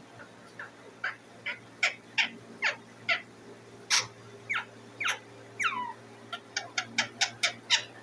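Rose-ringed parakeet calling for food: a string of short calls, each falling in pitch, spaced irregularly and coming faster, about three a second, near the end.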